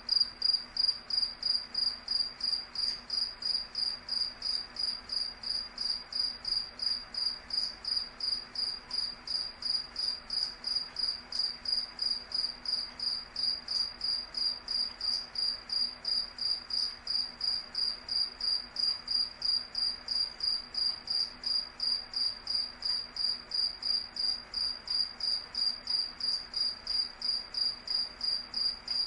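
Cricket chirping steadily in an even rhythm, about three high-pitched chirps a second.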